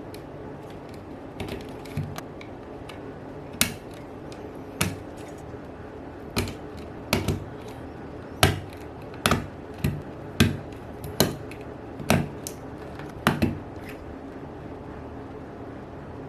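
Mechanical key switches clacking as keys are pressed one at a time: about fifteen separate, unevenly spaced clacks over a steady low hum.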